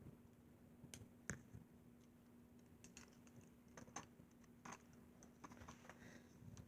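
Faint, scattered light clicks and taps of small parts being handled, over a low steady hum.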